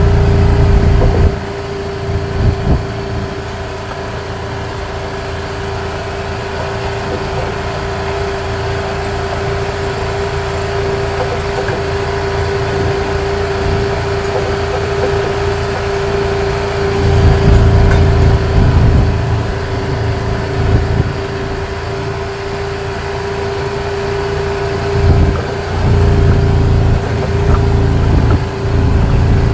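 A motor vehicle driving along with a steady engine drone and road noise. Wind buffets the microphone in loud low rumbles near the start, about halfway through and again near the end.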